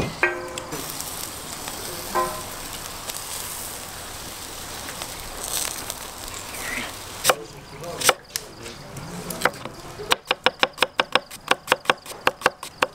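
Shashlik skewers sizzling over a charcoal grill, with two short metallic clinks of the skewers near the start. From about ten seconds in, a knife slices onions on a wooden cutting board in quick, even strokes, about five or six a second.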